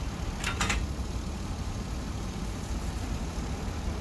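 Two short clicks, a quarter of a second apart about half a second in, as the ECU's circuit board and aluminium case are handled. Under them runs a steady low background rumble.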